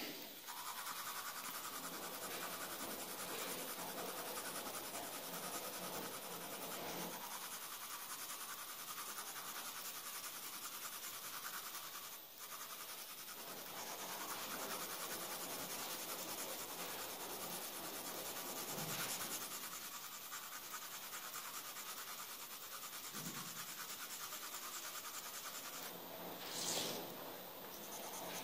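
Graphite pencil shading on paper: quick back-and-forth strokes making a steady scratchy rasp, with a brief break about twelve seconds in and a louder patch of strokes near the end.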